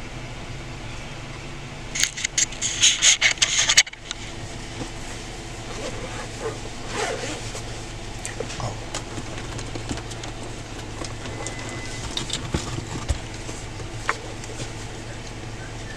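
Car engine idling, heard from inside the cabin as a steady low hum. About two seconds in, a loud jangling rattle lasts just under two seconds, followed by a few scattered small clicks.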